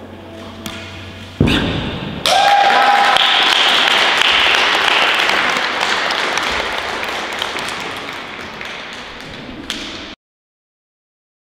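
A thud about a second and a half in, then applause from a small audience that starts suddenly, fades slowly over several seconds and cuts off abruptly.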